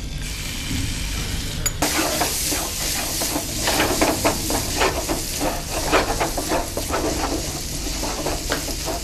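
Raw chicken pieces frying in hot butter and oil in a frying pan: the sizzle grows sharply about two seconds in, then a wooden spatula stirs and scrapes the pieces around the pan in quick, repeated strokes as they sauté.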